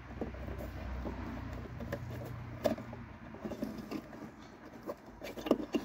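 Rustling and small clicks of wiring-harness wires and connectors being handled, with a couple of sharper knocks. A low steady hum underneath fades about three seconds in.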